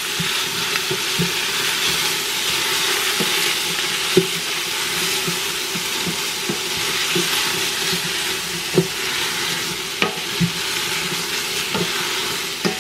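Tomatoes, zucchini and onions sizzling in hot oil in an Instant Pot's stainless steel inner pot on sauté, stirred with a wooden spoon that knocks and scrapes against the pot now and then.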